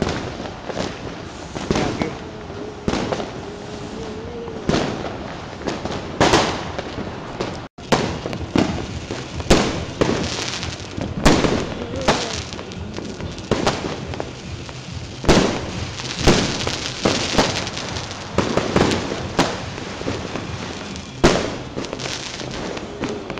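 Aerial fireworks and firecrackers going off: a dense, irregular run of sharp bangs and cracks, about one to two a second, with smaller crackling pops between them.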